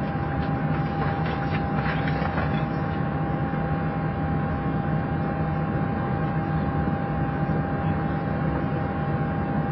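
Steady hum of a parked Boeing 737 flight deck's air-conditioning and equipment fans, with a constant thin whine over it and a few faint clicks early on.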